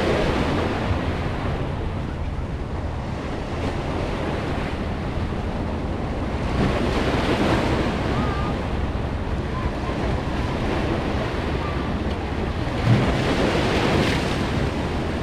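Small waves washing in and splashing against shoreline boulders, swelling in surges a few seconds apart, over a steady low rumble of wind on the microphone. One short thump near the end.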